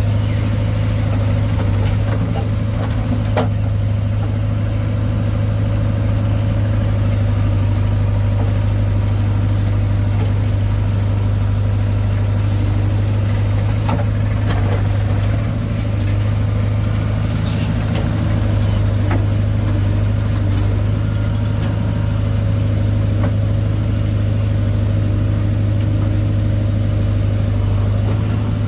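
Heavy diesel engine running steadily at a constant low speed, with a few light knocks along the way.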